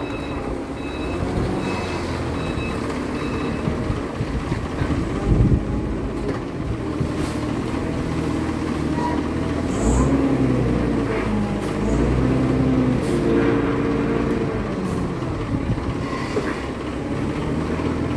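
Forklift engine running under load as it lifts and carries a heavy machine to a truck bed, its speed rising and falling several times in the middle. A series of short high beeps sounds in the first few seconds.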